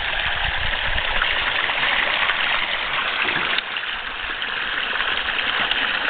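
Steady rushing noise like running water, with a faint low rumble in the first second; it dips slightly in level about three and a half seconds in.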